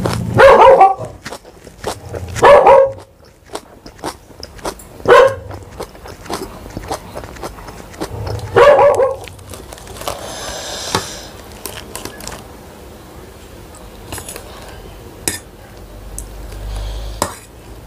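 A dog barking four times, short loud barks a few seconds apart. Between them come small clicks of chewing and of noodles being handled.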